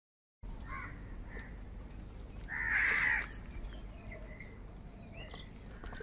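House crows cawing: a couple of short caws, then one louder, longer caw about midway, followed by softer calls.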